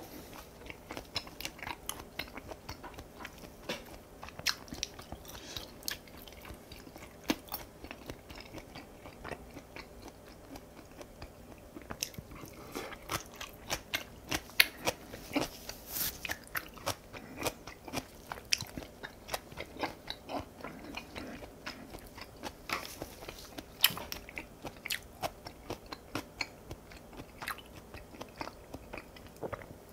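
A person chewing a mouthful of food close to the microphone: many irregular, sharp wet mouth clicks, busier from about twelve seconds in.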